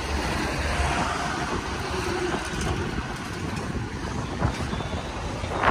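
Road traffic passing close by: a steady, noisy rumble of vehicles going by.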